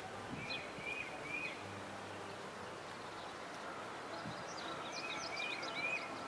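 A songbird singing two short phrases, each of three quick arching notes: one phrase about half a second in and another about five seconds in, the second with higher chirps around it, over a steady outdoor background hiss.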